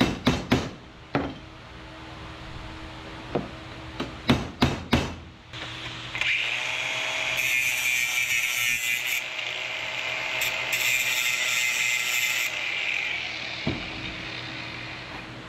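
A hammer striking a steel punch to knock out a metal pin: a quick run of sharp strikes in the first second, one about three seconds in and four more about four to five seconds in. Then a cordless angle grinder grinds metal steadily for about six seconds and stops, followed by a single knock near the end.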